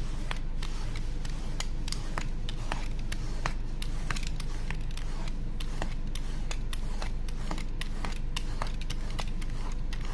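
Utility knife blade scraping back and forth across nylon-faced neoprene fabric in a cut-resistance test, making short scratchy strokes a few times a second. A steady low hum runs underneath.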